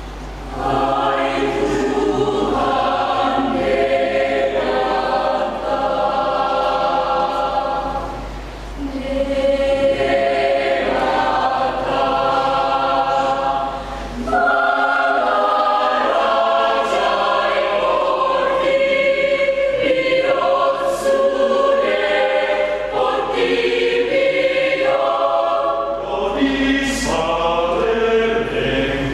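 Church choir singing a hymn in several voice parts, in sustained phrases with short breaths between them about eight and fourteen seconds in.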